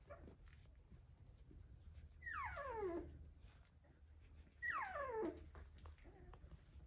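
An Australian Shepherd puppy whining twice, each cry sliding down in pitch and lasting under a second, the second a couple of seconds after the first. Faint scuffling and ticking of puppies moving on a blanket lies underneath.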